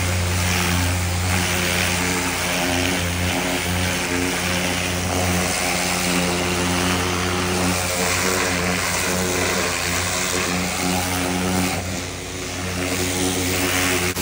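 Pressure washer running with a steady motor drone under the hiss of the water jet spraying from the wand onto the truck's floor and door sill. The level dips briefly near the end.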